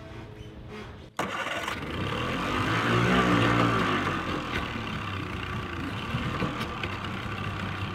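Outboard motor running on a pontoon boat. It swells louder for a second or so around three seconds in, then settles to a steady run.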